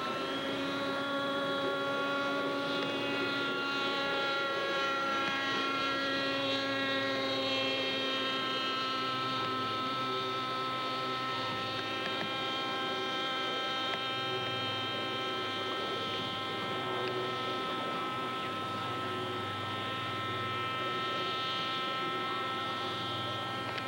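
Radio-control model airplane engine running steadily in flight, a high, buzzing note whose pitch drifts slightly as the plane manoeuvres.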